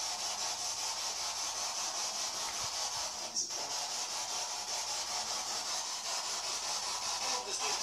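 Steady high-pitched hiss of a recording microphone turned up in a quiet room, with one faint click about three and a half seconds in.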